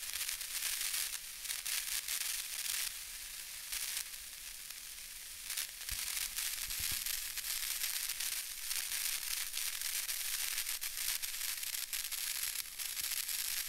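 Steady crackling static hiss, strongest in the high range, with no tone or voice in it.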